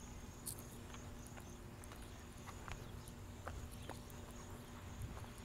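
Faint, irregular clicks of a dog's claws tapping on a concrete sidewalk as it walks on a leash, over a low rumble.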